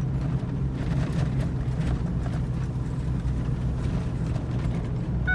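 A Ford F-350's V10 engine running steadily, a low drone with scattered light knocks over it.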